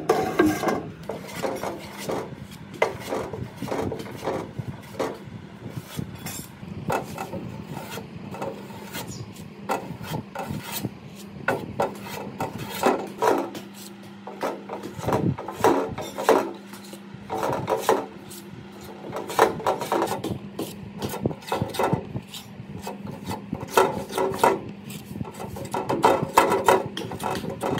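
Steel putty knife scraping and spreading body filler across a sheet-metal drill belt cover, in repeated irregular strokes. A low steady hum runs underneath.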